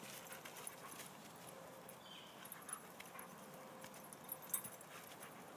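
Two playing dogs' paws scuffling and crunching through dry fallen leaves, a steady patter of crackles with a sharper click near the end.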